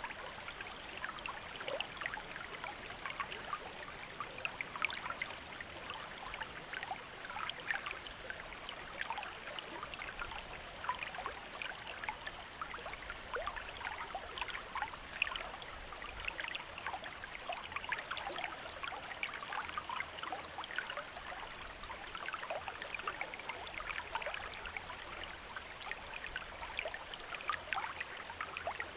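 Gently running water, a small stream trickling steadily with many small splashes and bubbling sounds.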